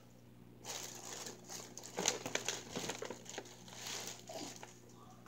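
Close crinkling and rustling, as of crinkly material being handled right next to the microphone. It is full of small crackles, starts under a second in and dies down near the end.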